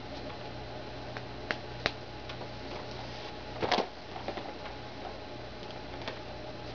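Leather English saddle being handled and pressed: a few scattered soft clicks and a brief creaking rustle a little past halfway, over a steady low hum.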